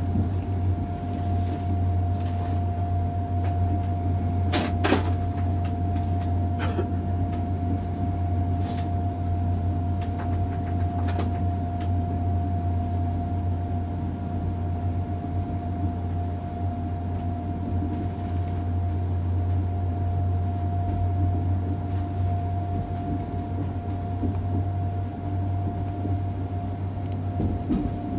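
Interior running noise of an ICE 3 high-speed train moving slowly: a steady low hum with a constant whine above it, and a few sharp clicks, the loudest about five seconds in.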